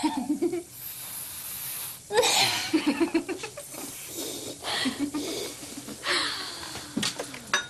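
Deep breaths drawn through a dental gas mask, broken by a woman giggling in several short bursts.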